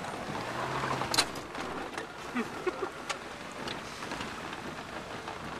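A 4x4 driving over a rough dirt track: a steady rumble of tyres on gravel and stones, with scattered small knocks and a low engine hum in the first second.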